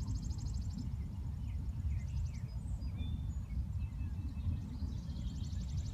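Distant thunder rumbling low and steady. Over it, night insects trill in a fast pulsing high buzz that fades out about a second in and comes back near the end, with scattered short chirps in between.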